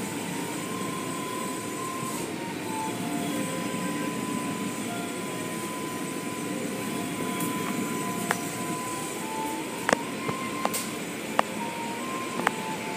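Automatic car wash tunnel running: a steady rush of water spray and machinery, with several sharp clicks or knocks from about eight seconds in.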